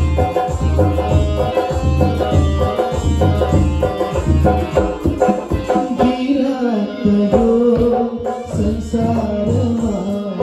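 Live Nepali folk-pop music: an electronic keyboard plays over rhythmic tabla drumming. About six seconds in, the low bass drops out and a melody line that slides up and down in pitch comes to the front.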